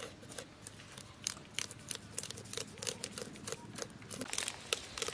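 Knife blade scraping the scales off a large chitol (featherback) fish, in short quick rasping strokes, about three a second.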